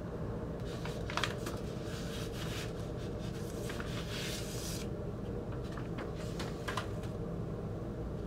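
White paper inner sleeve of a vinyl LP rustling and scraping as the record is slid against it, for the first half. A few short rustles and light clicks follow near the end, over a steady low background hum.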